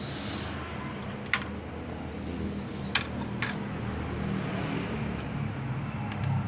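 A few sharp clicks from a laptop being handled and its keys pressed while testing new RAM, heard over a steady low background hum.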